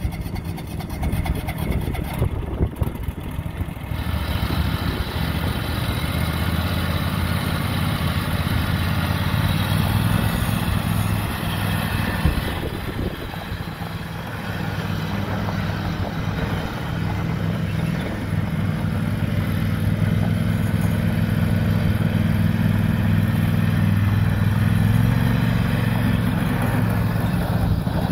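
Husqvarna riding lawn mower's engine running steadily as the mower is driven across gravel. From about four seconds in, the sound fills out and grows a little louder.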